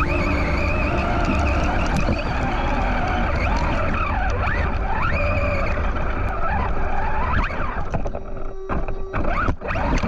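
Onboard sound of a Team Associated Rival MT10 RC monster truck: its brushless motor whines up and down in pitch with the throttle over a heavy rumble of tyres on gravel. In the last two seconds the sound turns choppy with several knocks as the truck tumbles over.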